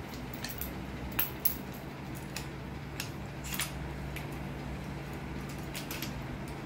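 Light metallic clinks and taps of a wrench and oil-line fittings being handled, a few scattered clicks over a steady low hum.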